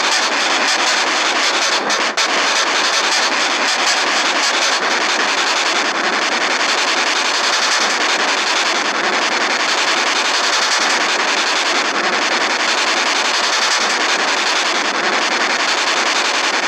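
A loud, steady hiss of noise with no tones or beeps in it.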